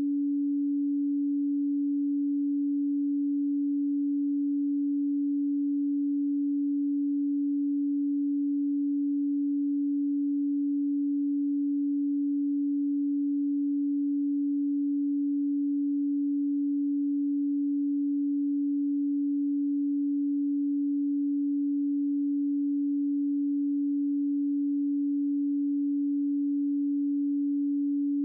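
A pure 285 Hz sine tone, held steady and unchanging.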